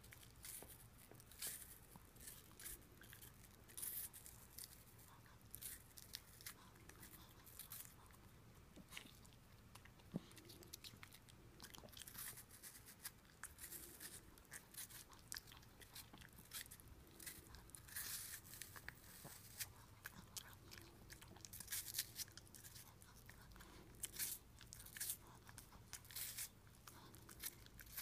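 Yorkshire terrier biting and chewing a raw apple: a long run of short, irregular crunches of crisp apple flesh.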